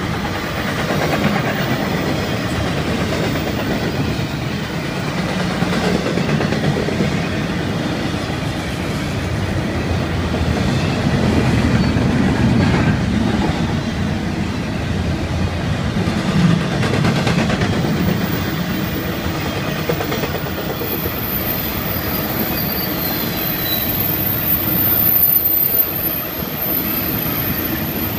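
Freight train cars rolling past close by: a steady rumble with the clickety-clack of wheels over rail joints. A thin high wheel squeal joins in about two-thirds of the way through.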